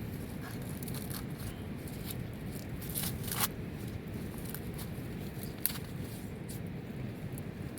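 Steady rain, with scattered sharp ticks and taps over it and a couple of louder taps about three and a half and five and a half seconds in.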